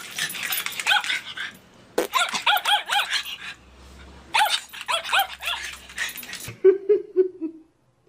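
Small dog yipping and barking in quick, high-pitched runs, three of them with short gaps between. Near the end comes a short, low, pulsing buzz.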